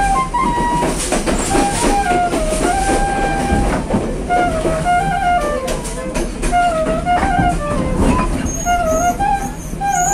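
A wooden transverse flute plays a melody of held and sliding notes. Behind it is the steady rumble of a moving train carriage, with sharp clacks and rattles.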